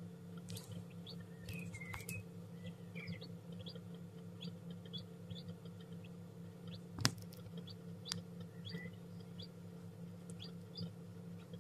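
Newly hatched chicken chick peeping in short, high chirps, with a couple of sharp taps, the loudest about seven seconds in, over a steady low hum.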